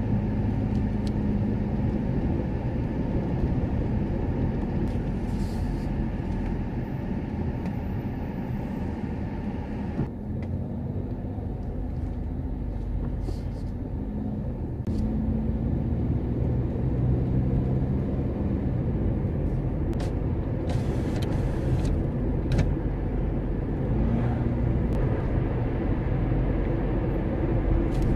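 Car driving slowly, heard from inside the cabin: a steady low engine and tyre rumble, with a faint engine hum that rises and falls a little as the speed changes.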